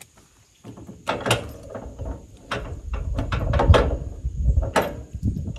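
Metal hitch hardware being worked by hand at the back of a pickup as a hitch lock is taken off: irregular sharp metallic clicks and clanks over low rattling. It starts about two-thirds of a second in.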